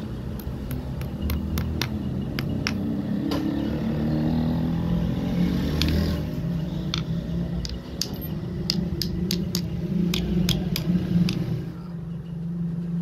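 Light, irregular metal taps and clinks as a hammer strikes a thin metal rod on a stone anvil, over a steady low rumble.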